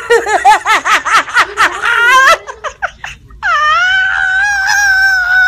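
A person laughing hard in quick, rapid bursts, then, from about three and a half seconds in, one long high cry held steady for over two seconds.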